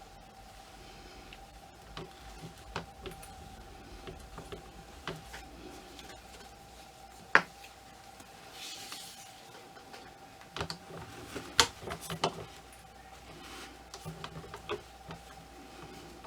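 Scattered small clicks and taps of doll armor pieces being handled and fitted onto a ball-jointed doll, with one sharp click about halfway through and a cluster of clicks a little later. A faint steady hum runs underneath.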